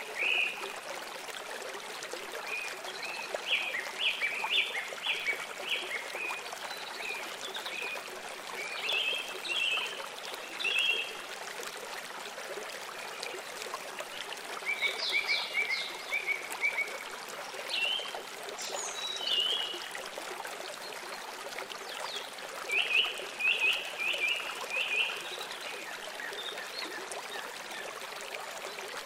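Running water trickling steadily, with short runs of quick, high chirping calls every few seconds.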